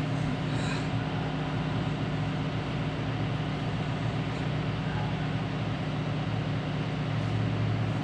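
A steady low machine hum with a constant drone, unchanging throughout.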